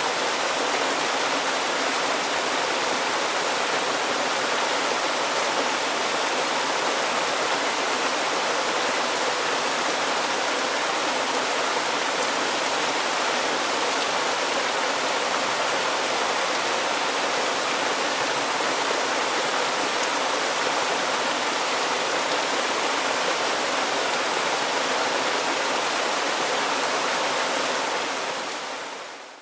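Forest river rushing steadily over rocks, an even wash of water noise that fades out near the end.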